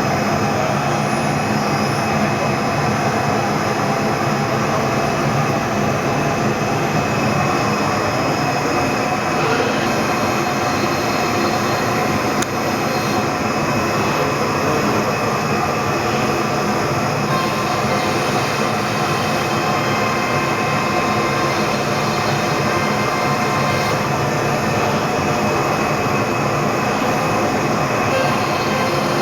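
Linnerman CC-1530 CNC router running steadily while machining, a loud continuous whine and hiss with no pauses.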